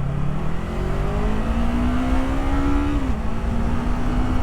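Yamaha R3's parallel-twin engine accelerating, its pitch climbing for about three seconds before dropping sharply on an upshift, then holding steady, over a steady rush of wind and road noise.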